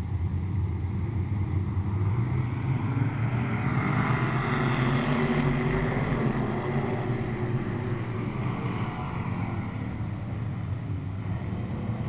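A field of street stock race cars racing around the oval, their engines a steady drone that swells as the pack passes closest, about four to six seconds in, then eases off.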